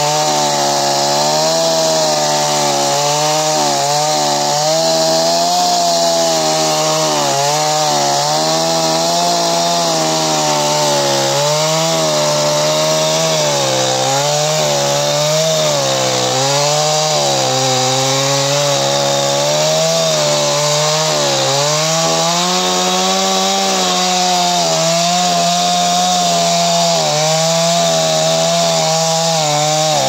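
Stihl two-stroke chainsaw running at high revs while cutting into a felled log. The pitch dips and recovers over and over as the chain bites into the wood.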